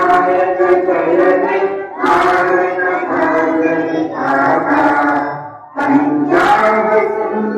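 A large group of schoolchildren singing a prayer together in unison. The phrases are held, with short breaks about two seconds in and again a little before six seconds in.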